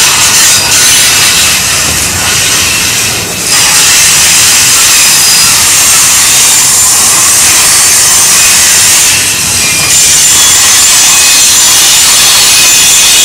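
Autorack freight cars rolling past on a curve, their steel wheels grinding and squealing against the rail in a loud, steady, high-pitched rush with thin whining tones through it.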